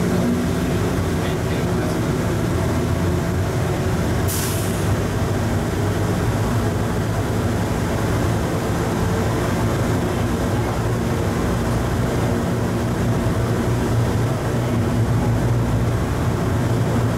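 Plane Train automated people mover running at speed through a tunnel, heard from inside the lead car: a steady rumble of the rubber tyres on the concrete guideway with a low motor hum. A short hiss about four seconds in.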